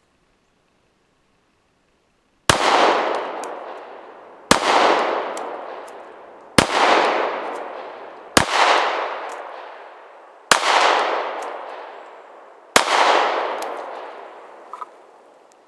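Glock 43 Gen 4 9mm pistol firing six single shots of full metal jacket ammunition, about two seconds apart, each followed by a long echoing decay. Six shots empty one standard six-round magazine.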